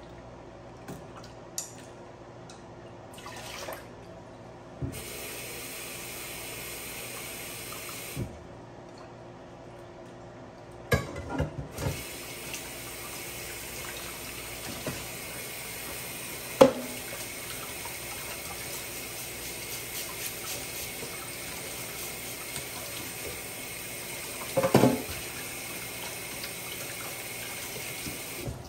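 Water running steadily from a kitchen tap, on for a few seconds, off, then on again for a long stretch. A few sharp knocks and clatters come in between, the loudest about two-thirds of the way through.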